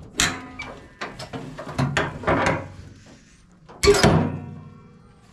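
Steel lifting linkage and dirt-bike front forks clanking and rattling as the front wheel is levered up, a run of metal knocks with the loudest clank about four seconds in.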